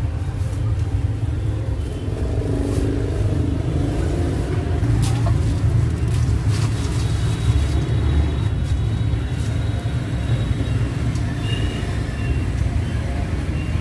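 Steady low rumble of motorbike traffic on a city street, with a few faint clicks.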